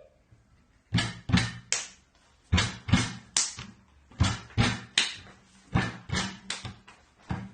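A run of sharp knocks in quick groups of three or four, about two or three a second, with short pauses between groups.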